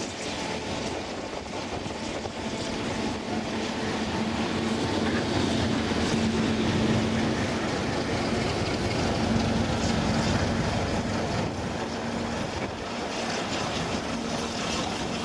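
Class 08 diesel shunter's English Electric six-cylinder engine running with a steady hum as it moves alongside on the adjacent track, over the rumble of train wheels on the rails. The sound swells to its loudest in the middle as the locomotive draws level, then eases slightly.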